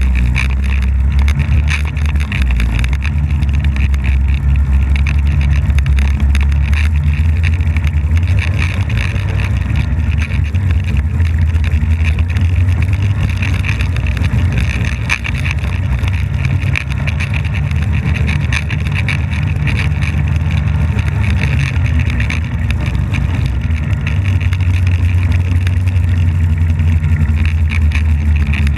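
Polaris snowmobile engine running steadily under way over snow, heard close up from the front of the sled, its pitch rising and easing a little with the throttle.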